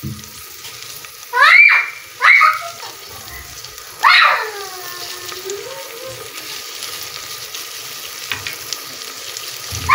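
Garlic-ginger paste frying in oil in an aluminium pot, a steady sizzling hiss. Over it a child cries out three times in a high voice, two short cries and then, about four seconds in, a longer one that slides down in pitch.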